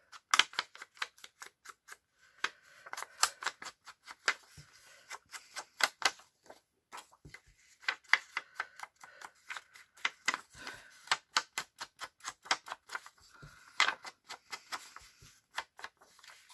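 Quick, uneven tapping of a handheld ink blending tool dabbed against paper edges and onto an ink pad, several light taps a second with short pauses between runs.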